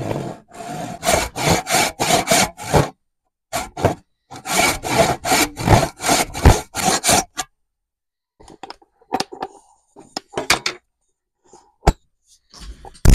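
Hand saw cutting a kerf into the top of a wooden hammer handle held in a bench vise, the slit that will take a wedge. There are two runs of steady back-and-forth strokes, about three to four a second, with a short pause between them. The sawing stops about seven seconds in and is followed by a few light clicks and knocks.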